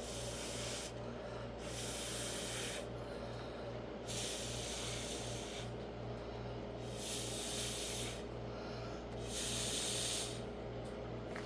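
Five hissing puffs of breath, each about a second long, blown through a drinking straw to push poured acrylic paint across a surface, over a steady low hum.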